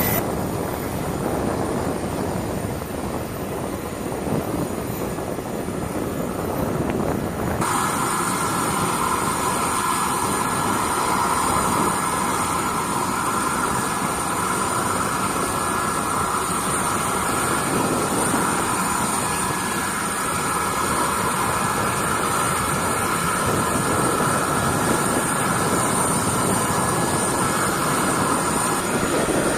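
Lockheed C-5M Super Galaxy's four turbofan engines running, a steady roar. About a quarter of the way in the sound changes abruptly and a high, steady whine rises over the roar.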